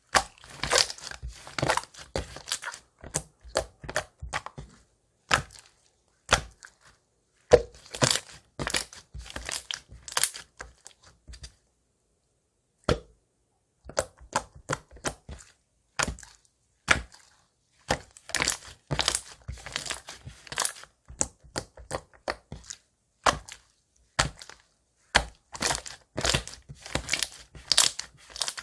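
Close-miked crunching and chewing of food: bursts of sharp, crackling crunches lasting a second or two, broken by short silent pauses.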